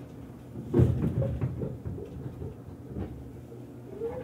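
Inside an Izukyu 2100 series train car: a sudden loud thump about a second in, followed by clattering and knocks through the car body. Near the end the low-tone TDK806-type DC traction motor begins to whine, rising in pitch as the train pulls away.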